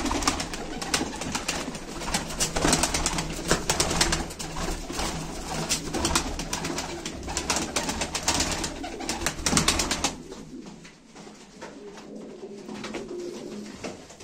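Domestic tumbler pigeons flapping their wings in rapid, clattering strokes, with pigeons cooing. The flapping stops about ten seconds in, leaving quieter cooing.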